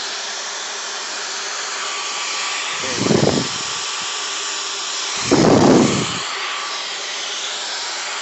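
Dyson V15 Detect Plus cordless stick vacuum running at a steady high-pitched whir, with two brief louder low rumbles about three and five and a half seconds in, as the cleaner head works the floor or rug.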